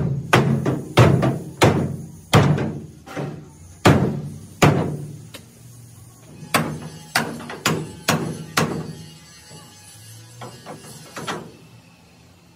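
Hammer blows on steel bars of an excavator cabin frame, struck about twice a second, each ringing briefly. The blows pause about five seconds in, resume for a few strikes, then thin out to lighter taps near the end.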